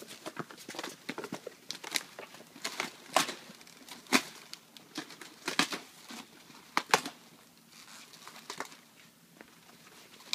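Outer leaves of a giant cabbage being torn and snapped off by hand: a run of irregular crisp cracks and crinkling rustles that thins out after about seven seconds.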